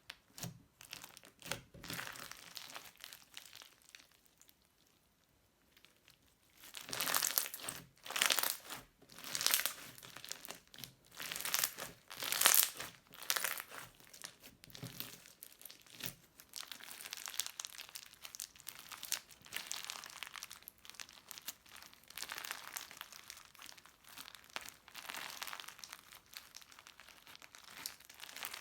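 Crunchy slime being squeezed and worked by hand, giving dense crinkly crackling. It pauses briefly about four seconds in, then comes back louder before settling to a lighter, steady crackle.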